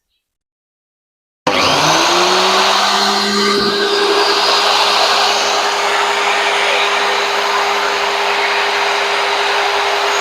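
Angle grinder switched on about a second and a half in, its whine rising as it spins up, then running steadily while grinding the pins off the end of a chainsaw chain.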